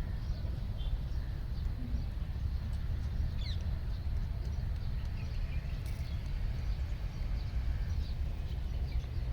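Outdoor ambience of a steady low rumble with short, high bird chirps scattered throughout.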